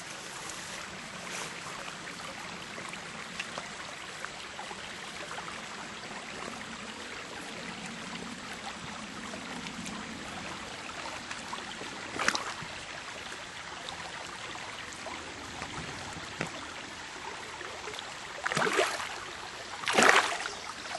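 Shallow creek water trickling steadily. One sharp splash comes about twelve seconds in, and near the end a fish thrashes at the surface in a quick run of loud splashes.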